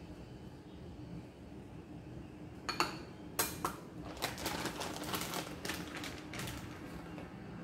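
A few sharp clicks of a serving spoon knocking against a bowl, followed by a plastic bag of shredded cheese crinkling and rustling as it is picked up and handled.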